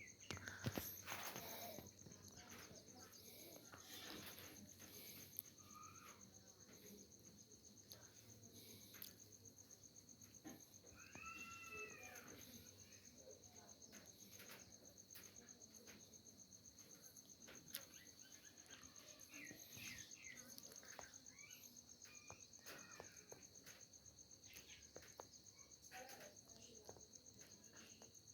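Faint, steady chirping of crickets, a fine continuous high trill, with scattered soft clicks and a short rising-and-falling call about halfway through.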